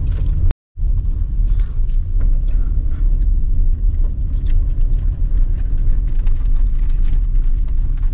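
Car on the move: a steady low rumble of engine and road, with many small rattles and knocks over it. The sound cuts out completely for a moment about half a second in.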